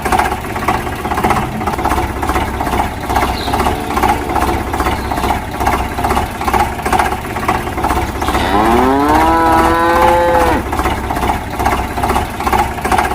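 A cow mooing once, a long call that rises in pitch and then holds, about two-thirds of the way in. Under it runs a steady rhythmic engine chugging of about three beats a second.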